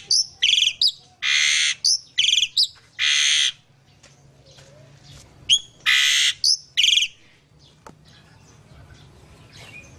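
A bird giving harsh, screeching calls in quick runs: about six in the first three and a half seconds, then a pause, then about four more near the middle.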